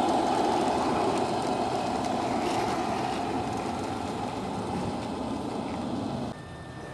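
Märklin gauge 1 model freight train running along the garden track, its rumble slowly fading as the wagons roll away. The sound drops off abruptly near the end.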